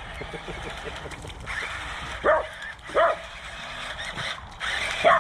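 Dog barking three times in short, sharp barks, about two, three and five seconds in. The dog is worked up by a small RC truck driving near it.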